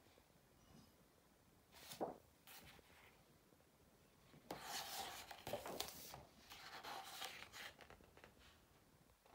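Faint rustling of a book's paper pages being handled and turned: a brief rustle about two seconds in, then a longer stretch of rustling and brushing in the middle.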